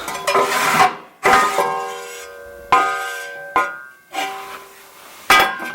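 Metal ash drawer and stop of a wood-burning stove being handled. There are about five sharp clanks, and after each one the sheet metal rings on with clear, bell-like tones that fade over a second or so.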